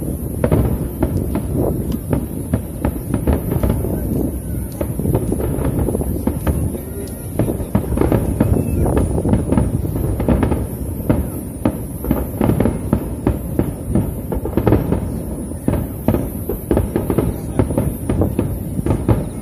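Aerial firework shells bursting in quick succession: a dense, continuous run of bangs with no real pause.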